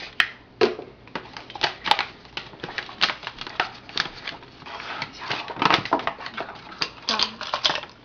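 Quick, irregular scrapes and taps of a measuring cup and kitchen utensils as flour is scooped out and measured for cake batter, several strokes a second.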